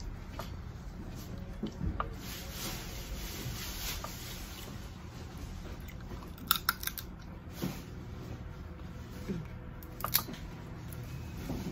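Scattered sharp clicks and cracks of Dungeness crab shell being broken and picked apart, with a cluster of cracks about two thirds of the way through, over a low steady hum.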